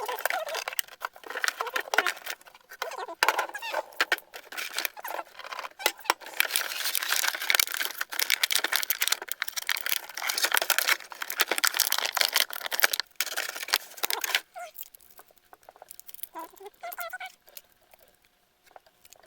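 Rustling and clicking of plastic toy doctor's kit pieces being handled, dense and continuous, then dropping to a few scattered small sounds about fourteen seconds in.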